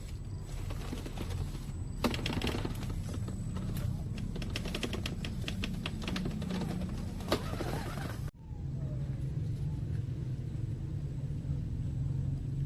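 RGT EX86120 RC crawler's electric motor and drivetrain running with a steady low hum. From about two seconds in, a dense patter of sharp clicks and crackles breaks off abruptly about eight seconds in, and the hum carries on afterwards.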